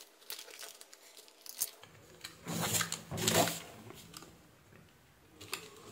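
Snap-off utility knife blade scraping and cutting through cooled hot glue on paper in short scratchy strokes, loudest about two and a half to three and a half seconds in.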